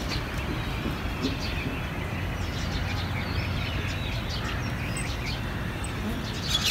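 A steady low rumble with faint bird chirps and the hoofbeats of a ridden horse moving on a sand arena.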